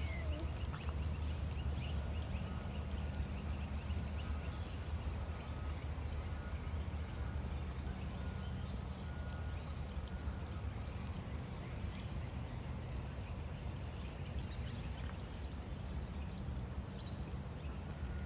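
A chorus of small animal calls, a dense run of rapid chirps for the first few seconds that then thins out, with a faint repeated short high note, over a steady low rumble.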